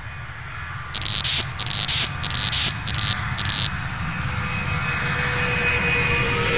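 Wind rushing over the onboard camera microphone of a falling Syma X5C quadcopter: a low, rumbling rush that grows steadily louder. About a second in come five short bursts of static-like hiss, and near the end a faint tone begins to rise in pitch.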